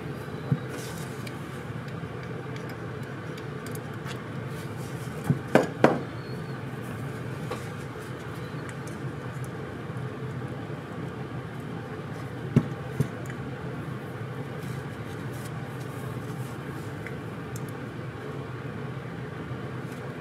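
Small sharp clicks and knocks of metal carburetor parts being handled and fitted: one near the start, three louder ones in quick succession about five to six seconds in, and two more around twelve to thirteen seconds in. A steady low hum runs underneath.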